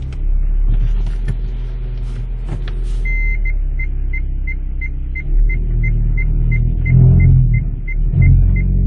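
A 2015 Hyundai Solaris's 1.6-litre engine and six-speed automatic, heard from inside the cabin, held on the brake in drive with the gas pressed gently at about 900–1200 rpm: a deep droning rumble that swells three times in the second half, with a few knocks early on. This is the abnormal drone and crackle from the gearbox area that the owner feared meant a failing automatic, and later suspects comes from the engine touching something as it rocks. A short electronic beep repeats about three times a second from about three seconds in.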